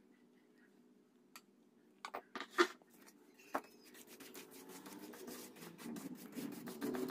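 A brush scrubbing the solder side of a circuit board: a few clicks and knocks, then fast scratchy back-and-forth rubbing that gets steadily louder over the last three seconds.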